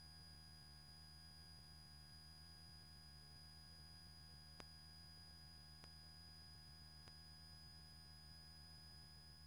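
Near silence on the aircraft's intercom audio feed: a faint steady electrical hum with a thin high whine, and a few faint clicks, the clearest about halfway through.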